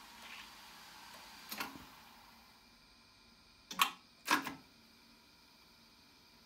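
Studer C37 tape recorder's transport keys and mechanism clunking: a light click about a second and a half in, then two loud clunks about half a second apart as the play key is pressed and the transport engages. After that the machine runs faintly and steadily.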